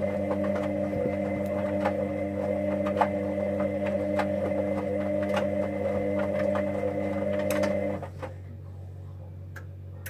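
Hoover Dynamic Next washing machine's motor turning the drum with a steady whine and scattered light clicks. It stops about eight seconds in, leaving a lower hum.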